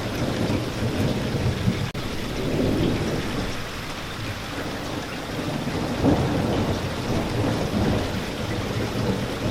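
Steady heavy rain with low rolling thunder underneath, the rumble swelling about six seconds in. A momentary gap in the sound about two seconds in.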